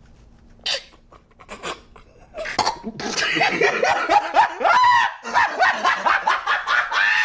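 Dog barking: a few single barks, then a loud, continuous run of barking from about three seconds in.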